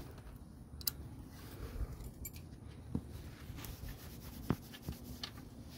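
A few faint, sharp little clicks and taps, spaced irregularly over a low, quiet background.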